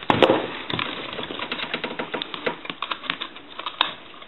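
Irregular clicks and light rattles of the plastic shell and internal wiring of a Western Electric Sculptura donut telephone being handled and pulled apart, with a louder clatter right at the start.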